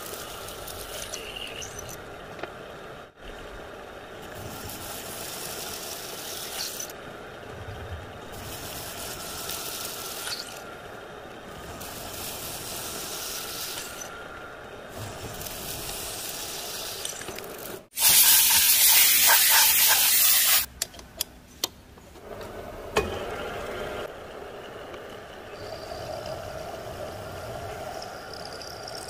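Vertical milling machine running, its end mill cutting a slot in a thick steel plate, with a hiss that comes and goes. About two-thirds of the way in, a much louder hiss lasts about two seconds.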